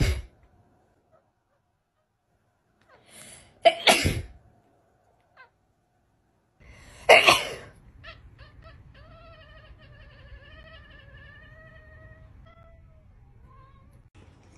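A cat sneezing sharply three times a few seconds apart, then giving a long wavering yowl that lasts about five seconds.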